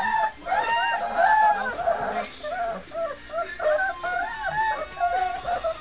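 Litter of three-week-old White Swiss Shepherd puppies whining and squealing: many short, high, rising-and-falling cries overlapping one another.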